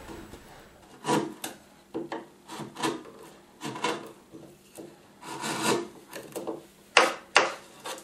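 A marking tool scratching along wood in short, irregular strokes, tracing the outline of a half mortise lock's body to mark its mortise. Two sharper, louder strokes come near the end.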